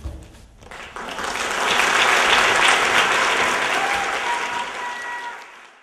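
Audience applauding at the end of a dance performance. The applause swells within the first second, holds, then fades away near the end.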